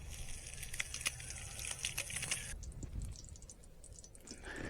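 Small stick fire in a Kelly Kettle's fire base crackling, with a steady hiss that cuts off abruptly about two and a half seconds in. Sparse crackles carry on after it.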